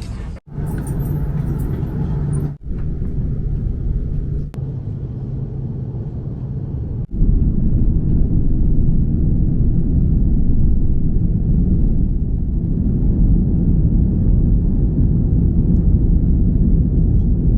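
Airliner cabin noise: a steady low engine rumble with a faint hum, broken by a few abrupt cuts. About seven seconds in it becomes louder and fuller.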